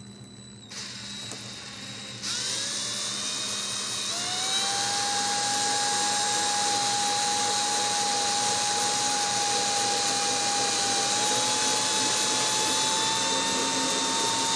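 Cordless drill boring a 13/64-inch pilot hole down through a wooden model-airplane wing. It starts about a second in, speeds up in steps over the next few seconds, then runs at a steady high whine that rises slightly near the end. The bit goes through without striking a hard spar.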